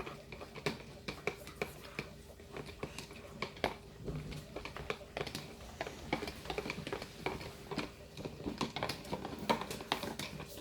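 Homemade slime being mixed after the activator goes in, as it starts to stick together: a run of irregular small sticky clicks and squelches.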